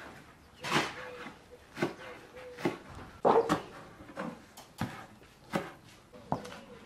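Steel cleaver chopping young green garlic stalks on a round wooden cutting board: single sharp knocks about once a second, around eight strokes.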